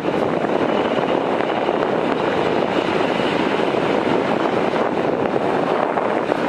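Military jet aircraft engine noise, a loud steady rushing sound with no rise or fall.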